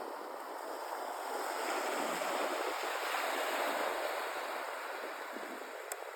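Ocean surf: a steady rush of breaking and washing water that swells through the middle and eases off toward the end.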